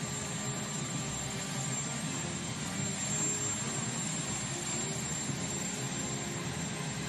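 Marine One presidential helicopter's turbine engines running on the ground: a steady rushing noise with a thin, constant high whine.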